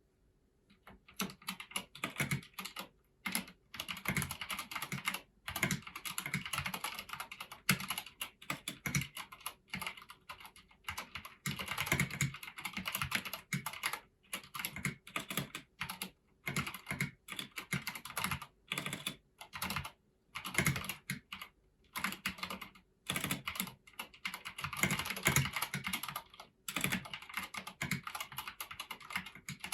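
Typing on a Filco Majestouch Convertible 2 mechanical keyboard fitted with Domi keycaps and foam inside the case: dense runs of keystrokes broken by short pauses every few seconds, starting about a second in.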